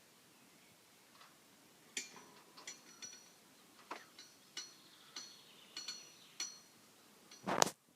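Highland cattle scratching their necks, making irregular ringing clinks and knocks about twice a second from about two seconds in, with one louder knock near the end.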